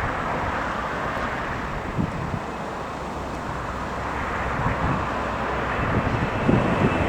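Aircraft engine noise that grows louder in the second half, with gusty wind buffeting the microphone.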